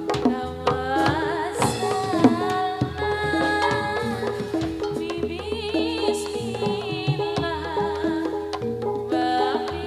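Live jathilan accompaniment: a Javanese gamelan-style ensemble with hand drums beating frequent strokes under steady pitched notes and a wavering melodic line.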